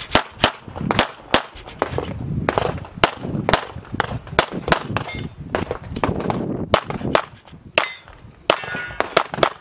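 9mm CZ 75 SP-01 Shadow pistol fired rapidly through an IPSC course of fire. The shots come mostly in quick pairs, in strings separated by short pauses, with a metallic ringing note near the end.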